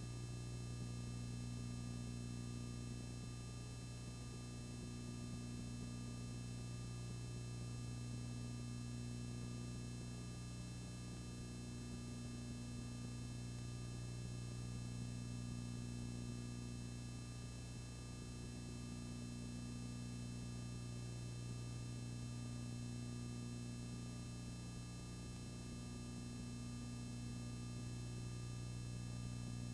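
Steady low electrical hum, unchanging throughout, with nothing else heard.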